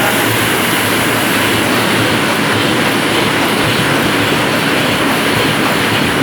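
Offset printing press running: a steady, loud mechanical clatter, with faint regular ticking from the machine's moving parts.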